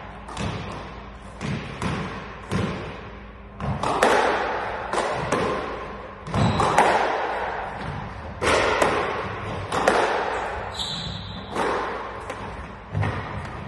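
Squash rally: the ball is struck by rackets and smacks off the walls of the court, a string of sharp knocks at irregular intervals, each ringing on briefly in the enclosed court. A short high squeak sounds a little past ten seconds in.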